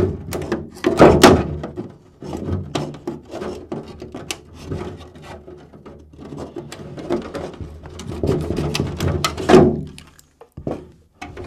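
Scissors snipping through a thin, clear polycarbonate RC body shell, with the stiff plastic crackling and flexing as it is cut and handled. The loudest crunches come about a second in and again near the end.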